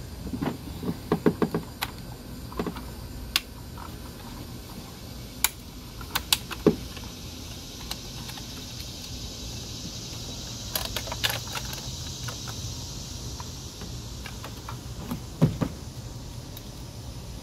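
Hands working the rear spark plug wires loose behind a minivan engine: scattered light clicks and taps of rubber boots, wires and plastic, a quick run of clicks about eleven seconds in and a duller knock near the end.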